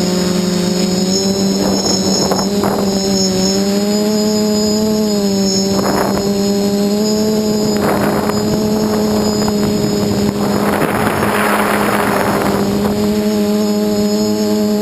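Quadcopter's four SunnySky 2216 brushless motors spinning 8x4.5 props in flight, giving a steady buzzing hum whose pitch shifts slightly with throttle. Several short bursts of rushing noise cut across it, and a longer one comes near the end.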